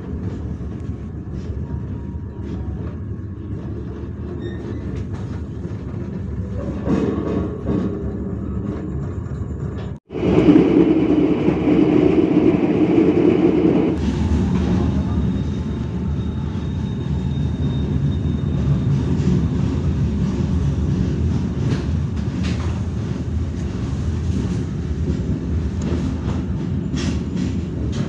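Passenger train running on the track, heard from inside a coach: a steady rumble with occasional wheel clicks over the rail joints. About ten seconds in the sound cuts briefly, then comes a louder stretch of about four seconds before the steady rumble returns.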